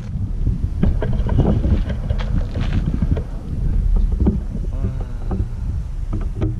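Wind buffeting the microphone, a loud low rumble, with scattered small knocks and a brief voice about five seconds in.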